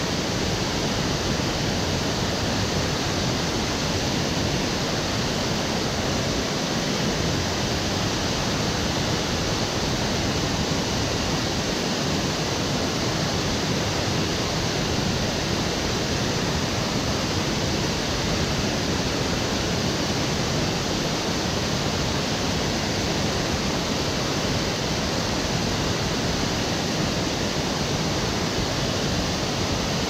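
A waterfall crashing into its plunge pool, heard close up as a loud, steady rush of falling water that never lets up.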